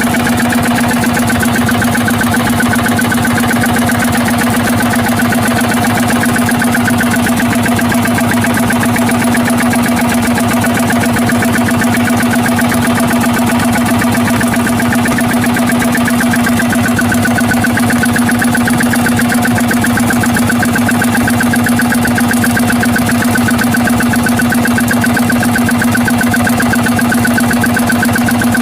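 Fishing boat's engine running steadily at constant speed, an even, unchanging hum.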